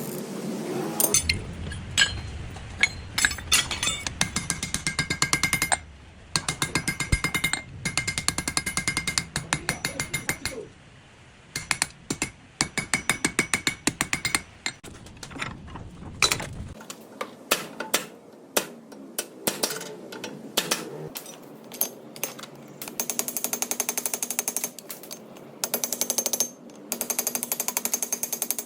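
Hot iron being forged with rapid trains of hammer blows on metal, coming in bursts with short pauses between them. A low hum runs underneath until a little past halfway, then stops.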